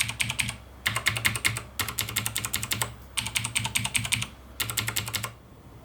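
Fast typing on a clicky mechanical keyboard with tactile clicky switches: rapid clacking keystrokes in runs of about a second, separated by brief pauses, and stopping shortly before the end.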